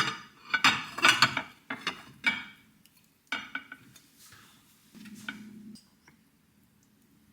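Dishes and cutlery clinking and clattering, a quick run of knocks for the first three seconds and a few more soon after, with a brief low hum about five seconds in.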